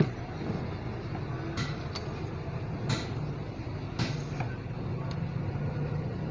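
Small metal compressor parts clinking as they are handled over a sheet-metal workbench: a sharp clink right at the start, then a few lighter clicks about one and a half, three and four seconds in, over a steady low background rumble.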